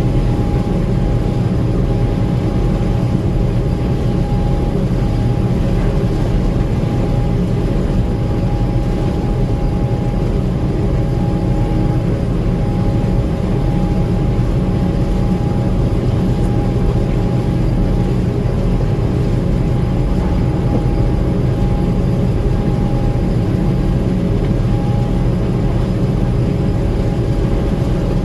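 Gleaner M2 combine running steadily: an even engine and machinery drone with a constant high whine over it.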